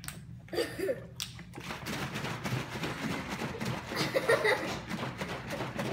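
Water sloshing and splashing inside a plastic gallon jug that is being shaken hard to mix in rinse cleaner, starting about a second and a half in. A brief voice is heard just before the shaking.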